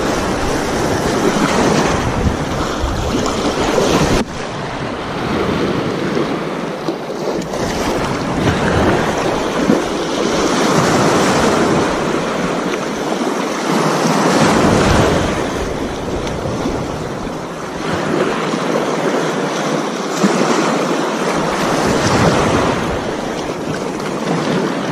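Small waves washing over the shallows at the shore, swelling and ebbing every few seconds, with wind buffeting the microphone. A single sharp click sounds about four seconds in.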